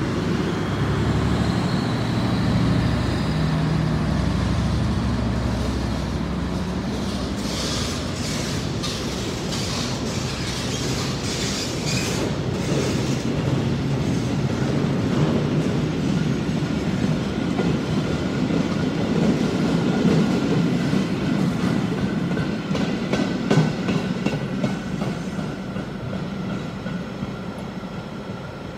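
Diesel locomotive pulling a work train past: the engine hums at first, then the wagons go by with wheels clicking over rail joints and a thin high squeal from the wheels, fading near the end.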